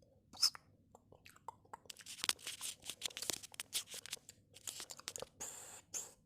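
Irregular crackling and crunching made by hand to imitate a crackling fire, sparse at first and much denser from about two seconds in.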